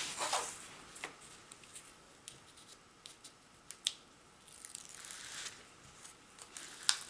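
Protective cover sheet of a diamond painting canvas being handled and peeled up at a corner: soft rustling and crackling of the sheet with scattered light ticks, the sharpest about four seconds in and another near the end.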